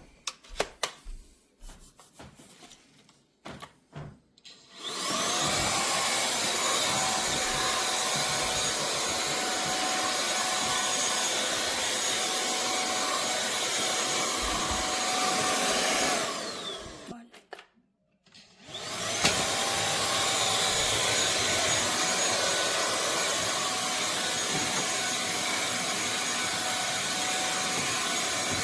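Cordless stick vacuum cleaner, a 550 W INTETURE, switched on after a few light clicks. Its motor whine rises and settles into a steady high whine over rushing air. About halfway it is switched off and the whine falls away, then after a short pause it starts again with a rising whine and runs steadily.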